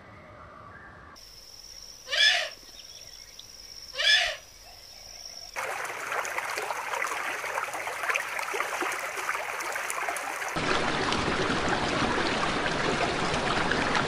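Two loud calls about two seconds apart over a steady high-pitched whine. About five and a half seconds in, both give way to a steady rushing noise, which grows fuller and louder about ten and a half seconds in.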